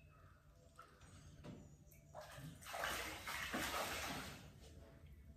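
Water splashing and sloshing for about two seconds in the middle, the loudest sound here, preceded by a few faint knocks.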